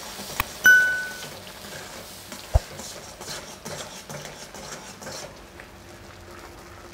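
Steel ladle stirring hot milk into ghee-roasted semolina in a steel kadai, scraping the pan over a light sizzle that thins out after about five seconds. Near the start, a single sharp metallic clink of ladle on pan rings briefly, and a dull knock comes a couple of seconds later.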